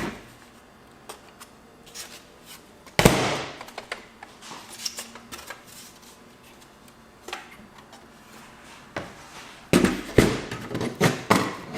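Laptop case parts being handled: scattered clicks and knocks of plastic and metal, with one sharp knock about three seconds in and a quick run of knocks near the end.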